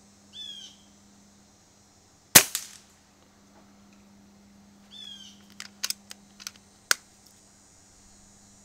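AirVenturi AvengeX Tactical .22 PCP air rifle firing one shot: a single sharp crack about two seconds in, the loudest sound, with a short ring after it. A run of quick sharp clicks follows about three seconds later.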